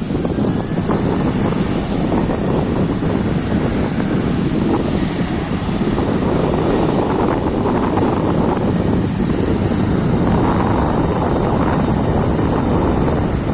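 Aircraft engines running loud and steady through a takeoff, with a strong wind rumbling over the microphone.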